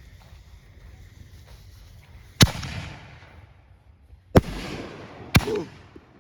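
Consumer 5-inch canister firework shell going off: three sharp bangs, the second about two seconds after the first and the third a second later, each followed by a rumbling echo that dies away.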